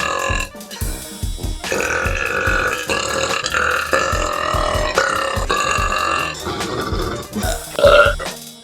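A girl burping, a run of long drawn-out burps one after another, over background music with a steady beat.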